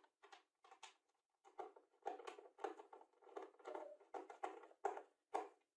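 Hand screwdriver turning a small screw into particleboard, a faint short scrape with each twist, about two to three a second. A brief knock at the start as a round disc is set down on the board.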